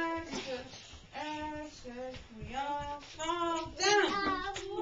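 A voice singing a simple tune in a series of held notes, each about half a second long. A high rising squeal about four seconds in is the loudest moment.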